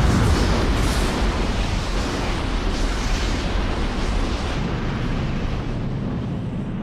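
Anime sound effects for a huge energy blast: a heavy boom at the very start, then a dense, continuous rumble with bursts of crackle about one, three and four seconds in, slowly easing off.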